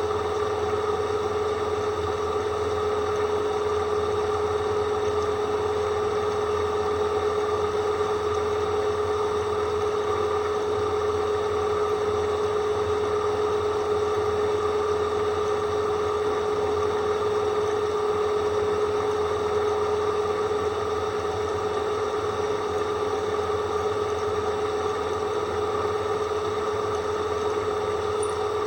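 Drill running steadily with a dull bit whistling: one unchanging tone with overtones above it. The whistle is the sign of a blunt drill bit.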